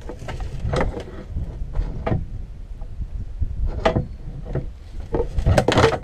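A steel pry bar knocking and levering against an outboard motor's mount on an aluminum boat's transom, a few separate metallic clanks, then a louder clatter near the end as the motor breaks free and falls off backwards.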